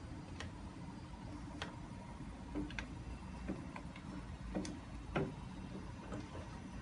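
About ten irregular light clicks and taps over a low steady background, the loudest about five seconds in.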